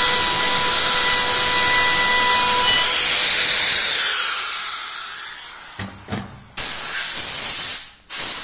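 A hand-held power carving tool with a gouge blade runs with a steady whine over hiss, then fades out about three seconds in. A loud burst of hiss follows near the end.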